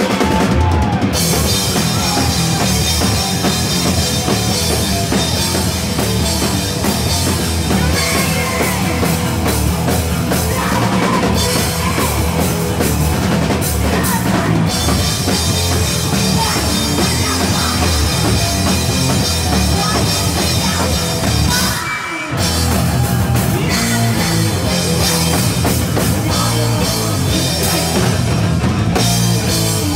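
A live rock band playing loud, with electric guitar and a pounding drum kit, heard from close in the crowd. The playing breaks off for a moment about two-thirds of the way through, then comes straight back in.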